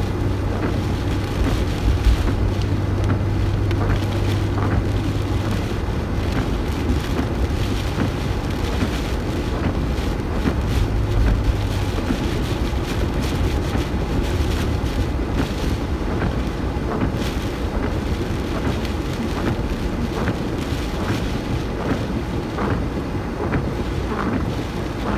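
A car driving through hurricane wind and rain: a steady road and engine rumble with a low hum that fades in and out, and rain pattering on the car.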